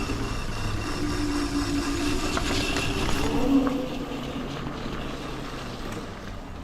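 Wolf King GTR electric scooter in motion: a steady whine that climbs in pitch about three and a half seconds in and then fades. It carries a train-like rubbing from the rear brake disc dragging on the pads, which the owner puts down to a bent disc or a misaligned wheel.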